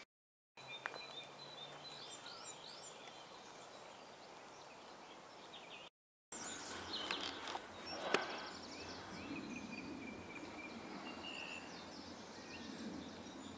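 Quiet outdoor ambience with small birds chirping and singing, several short sweeping calls, and a single sharp click about eight seconds in. The sound drops out completely twice, briefly, at edits.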